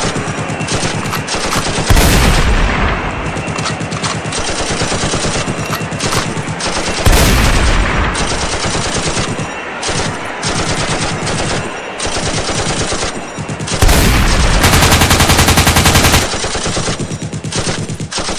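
Sustained automatic gunfire, a dense rattle of rapid shots. Louder, heavier blasts come about two, seven and fourteen seconds in, and a fast, even burst follows the last one.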